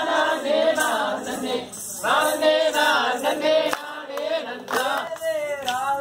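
Voices singing a Tamil valli kummi folk dance song, in phrases of about two seconds with short breaks between them.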